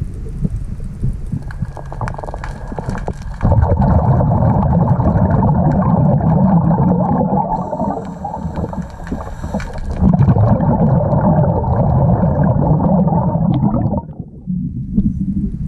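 A diver's breathing regulator heard underwater: exhaled air bubbling out in a long gurgling rush that stops abruptly near the end.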